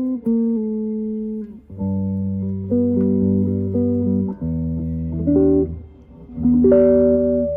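Guitar playing held, plucked notes in a slow, loose jam, with lower bass notes joining about two seconds in.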